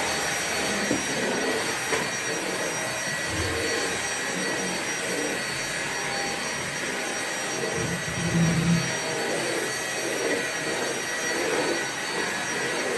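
Vacuum cleaner running steadily: an even rushing hiss with a thin motor whine. A low rumble swells briefly twice, the stronger about eight seconds in.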